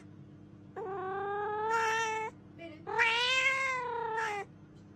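A cat meowing twice in long, drawn-out calls, the second rising and then falling in pitch.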